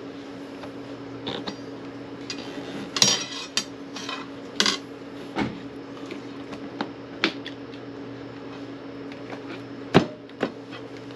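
Tyre levers clinking and knocking against the rim of a Kawasaki W650's spoked front wheel as a new tyre's bead is levered on by hand: irregular metallic clinks, the loudest about ten seconds in. A steady low hum runs underneath.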